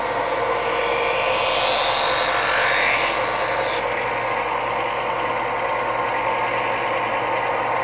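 Bench belt sander running steadily, with the rasp of a wooden spatula pressed against the moving belt. The rasp rises in pitch for about two seconds and stops suddenly a little before four seconds in, when the wood is lifted off; the motor keeps running after that.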